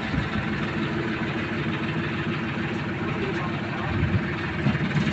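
Tractor diesel engine idling steadily with an even low chug.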